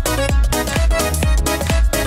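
Electronic dance music with a steady kick-drum beat and a repeating synth melody.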